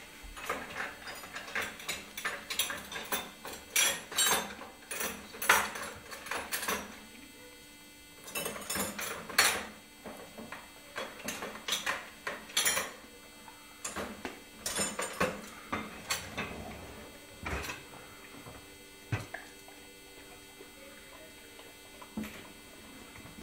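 Plates and cutlery clinking and rattling in a dishwasher rack as a dog licks and noses them. The clinks are irregular, thick in the first several seconds, then come in clusters and grow sparser toward the end.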